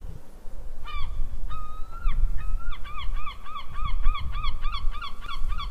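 A bird giving honking calls: a few single and drawn-out calls, then a quick steady series of about three honks a second from about three seconds in, over a steady low rumble.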